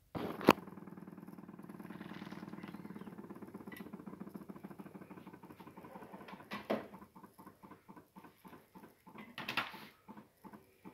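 Luxman VS-300 vacuum pump for the PD-300 turntable switching on with a sharp click, then running with a rapid pulsing buzz that, after about six seconds, thins into separate puffs about three a second as it draws air from under the record to hold it to the platter.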